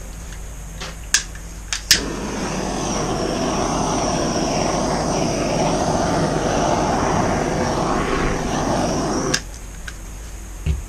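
Handheld torch flame running steadily for about seven seconds as it is played over wet poured acrylic paint, then cutting off suddenly. Two sharp clicks come just before the flame starts, and another click near the end.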